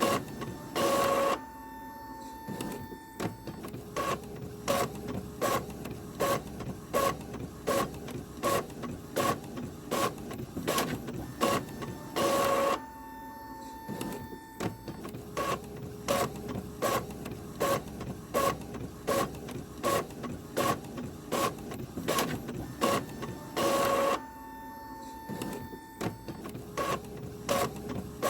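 Printer running through pages: sharp regular clicks about twice a second. About every eleven seconds there is a louder half-second burst, followed by a steady tone held for about two seconds. The cycle repeats three times.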